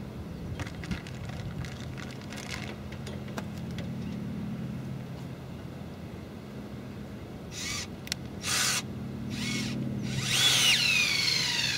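Cordless drill driving a large plastic screw-in tent peg into grassy ground. There are two short bursts a little past the middle, then a longer, louder run near the end with a falling whine, over a steady low hum.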